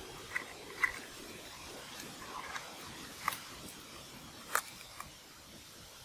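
A few scattered sharp clicks and light snaps as hands handle and pry at a green bamboo tube, over a faint steady outdoor hiss.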